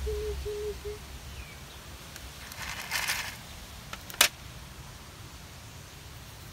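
Dry cat kibble rattling in a plastic container about three seconds in, followed a second later by a single sharp clack as the container is handled. A few short, even low notes repeat in the first second.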